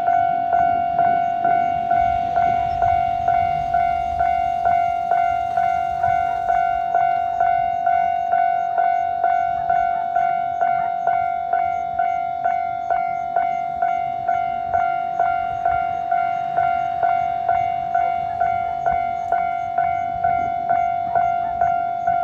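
Japanese railway level-crossing warning bell ringing its 'kan-kan' alarm in an even rhythm, a little under two strikes a second. Each strike is a ringing tone that carries into the next. The bell signals that a train is approaching and the crossing is closing.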